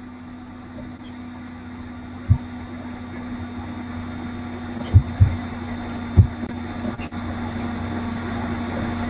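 Steady electrical hum under a hiss that slowly grows louder, with four dull thumps: one about two seconds in and three between five and six seconds in.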